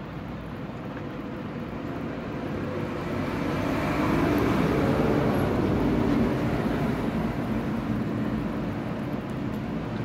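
Background vehicle noise, a steady rumble that swells about four seconds in and eases off toward the end.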